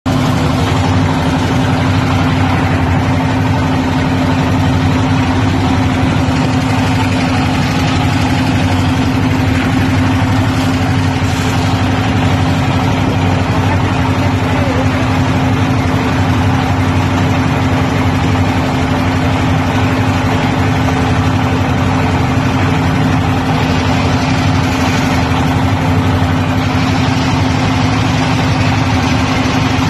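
Engine of a small passenger boat running steadily under way, a loud even drone with a constant low hum that neither rises nor falls.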